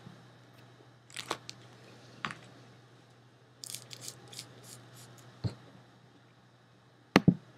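Faint, scattered scratches and clicks of a pen writing on paper and the paper being handled, with a couple of sharper clicks near the end, over a low steady hum.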